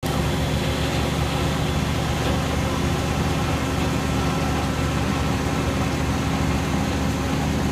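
Engine of a truck-mounted well pump hoist running steadily while it lifts well pipe out of the well.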